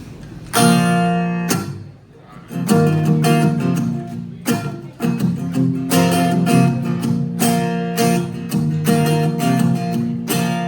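Live amplified acoustic guitar playing a song's intro. A single chord rings out and fades, and then a steady strummed chord pattern starts about two and a half seconds in.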